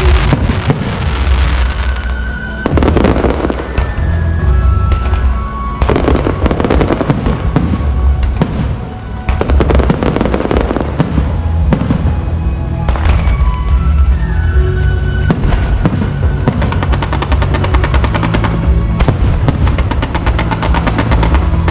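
Fireworks going off in quick succession throughout, dense crackling over heavy low booms, with music playing underneath.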